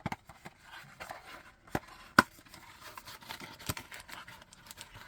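Hands handling small keyboard accessories in their packaging: faint rustling with a few sharp clicks and taps, the loudest about two seconds in.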